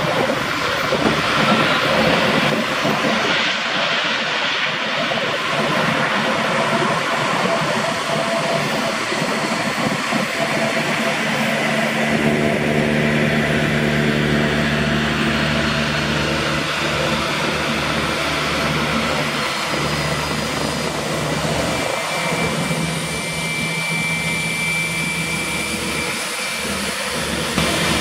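Eurocopter EC145 (MBB/Kawasaki BK 117 C-2) twin-turbine helicopter hovering just above the runway: the steady whine of its turbines over the pulsing of the rotor blades, with a thin high whine rising near the end.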